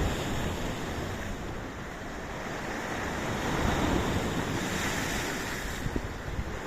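Sea waves surging and breaking on a shore, a wave building up and washing in around the middle, with wind buffeting the microphone.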